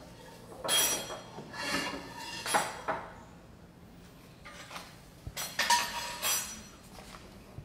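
Kitchen clatter: metal utensils clinking against pots and glass, in several short bouts with pauses between.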